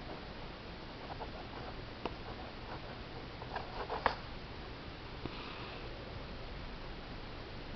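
Needle and thread working through a stamped cross-stitch canvas: scattered soft ticks and small clicks, one sharper click about four seconds in, over a steady background hiss.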